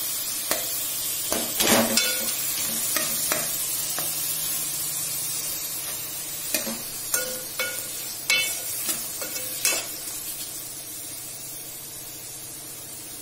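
Sliced onions and tomatoes sizzling in a metal pot while a metal spoon stirs them, clinking and scraping against the pot. The clinks come in clusters until about ten seconds in, then stop, and the sizzle fades toward the end.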